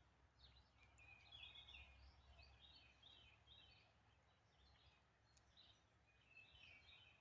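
Faint birdsong: a bird repeating short chirped phrases over and over, over a quiet low background hum.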